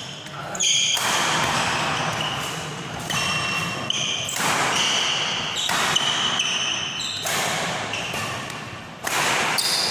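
Badminton rally in a sports hall: sneakers squeaking on the court and racket strikes on the shuttlecock, with repeated surges of noise every second or two.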